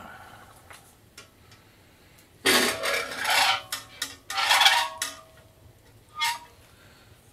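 Metal objects clattering and scraping against each other in two rattling bursts of about a second each, with a single shorter clank a second later.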